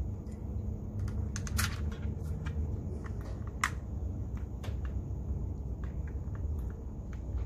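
Scattered light clicks and taps of a plastic pry tool and plastic controller parts being handled on a silicone work mat, over a steady low rumble.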